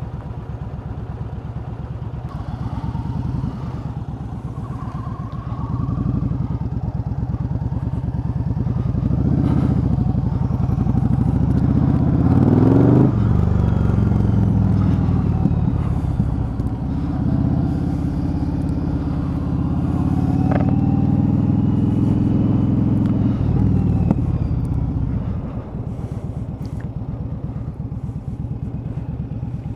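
Cruiser motorcycle engine running, then pulling away and accelerating through the gears, with a sharp rising rev about halfway through. A steady run follows, and then the throttle closes a few seconds before the end.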